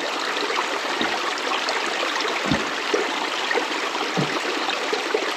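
Shallow river water running steadily, an even rushing sound, with a couple of small plops partway through.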